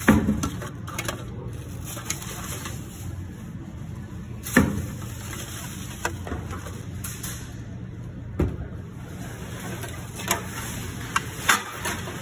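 Empty plastic PET bottles dropped into a bag-lined recycling bin, each landing with a sharp clatter on the bottles already inside. The loudest drops come at the start and about four and a half seconds in, with a few lighter knocks later, over a steady low background hum.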